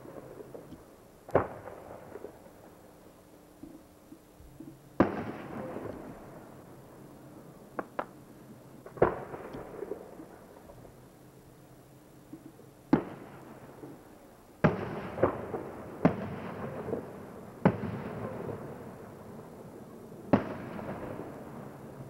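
Aerial fireworks bursting: about ten sharp bangs a few seconds apart, several trailing off in an echoing rumble, with a quicker run of bangs in the second half.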